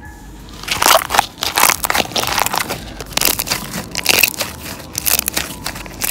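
White slime packed with foam rings being squeezed and kneaded by hand, the foam beads giving a dense, crackling crunch. It starts under a second in and goes on in quick irregular crackles.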